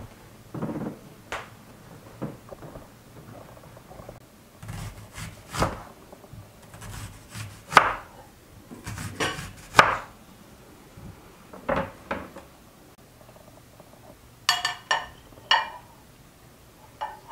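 Irregular knocks and clatter of food preparation: a knife slicing through a red onion, with sharp strikes about eight and ten seconds in, then a quick run of ringing clinks near the end as ceramic plates of salad vegetables are set down.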